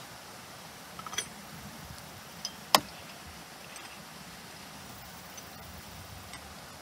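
Metal coffee gear being handled and set down: a few light clicks about a second in, then one sharp metallic clink just under three seconds in, with faint ticks after, over a steady background hiss.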